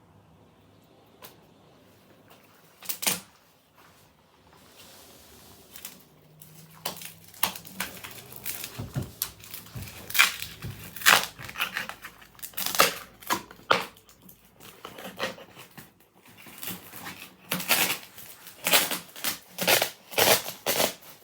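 An upholstered armchair being pulled apart by hand: irregular crackling, tearing and crunching of its fabric and stuffing, with a couple of separate knocks first and much busier handling in the second half.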